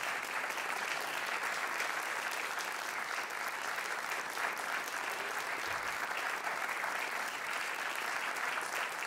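Audience applauding steadily at the end of a live performance.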